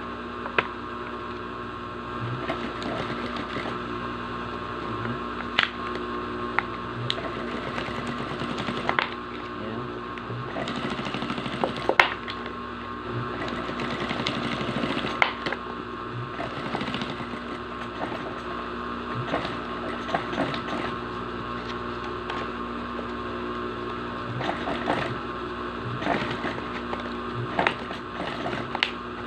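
Industrial single-needle sewing machine stitching bias tape onto the edge of a clear plastic bottle sheet. It runs in stretches that stop and start, with a steady motor hum under rapid needle ticking and a few sharp clicks.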